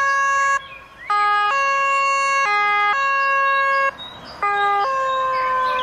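Electronic two-tone ambulance siren of a toy ambulance: a short low note followed by a longer high note, repeated in three phrases with short breaks between them.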